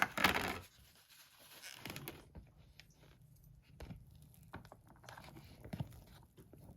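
Kitchen handling noises around a hot bowl of freshly microwaved rice: a sharp clack at the start, then a short rustle and scattered light scraping and small knocks.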